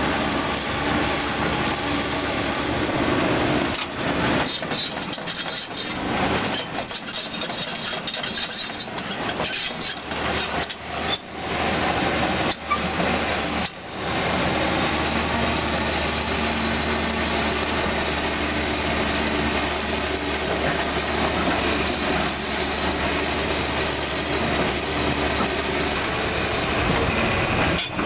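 Caterpillar 320D2 hydraulic excavator working on loose crushed rock: the diesel engine runs steadily under a dense clatter of steel track links and grinding stone.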